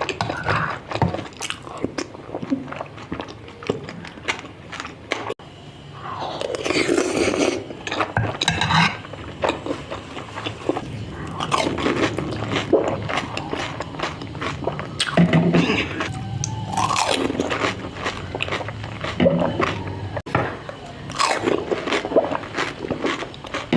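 Close-up eating sounds: food being bitten, crunched and chewed, with many short crisp crunches at irregular intervals.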